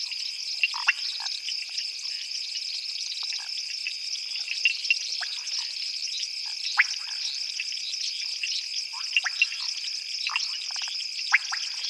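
Night chorus of frogs and insects: a steady high insect trill throughout, with many short frog calls sounding irregularly, several a second at times.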